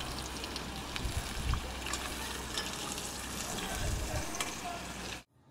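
Sausage sizzling in olive oil in a frying pan, a steady hiss with scattered small crackles, cutting off abruptly near the end.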